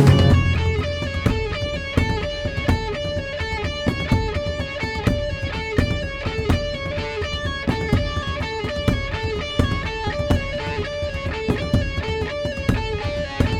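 Instrumental music: a guitar plays a repeating figure of single notes over a steady ticking beat, quieter after a louder full-band passage ends right at the start.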